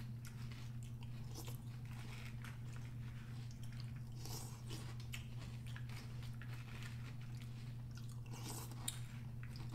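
Close-up chewing and crunching of Post Honey Maid S'mores cereal (graham pieces, chocolate puffs and marshmallows in milk), with soft clicks of spoons in the bowls, over a steady low hum.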